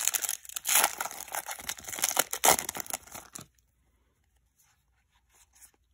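Foil trading-card booster pack being torn open, a crinkling rip that lasts about three and a half seconds and then stops. A few faint rustles of the cards being handled near the end.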